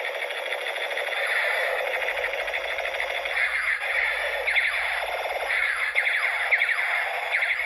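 Electronic sound effects: a steady buzzing tone, joined about three seconds in by rapid, repeated falling 'pew' sweeps, like a battery toy gun's sound module.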